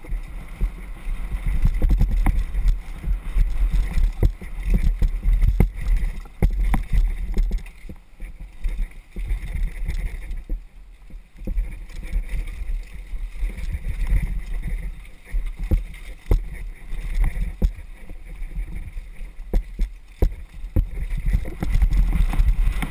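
Mountain bike descending a rough dirt trail: a heavy, uneven rumble of tyres and wind buffeting the on-board camera microphone, with frequent sharp knocks and rattles as the bike hits roots and rocks.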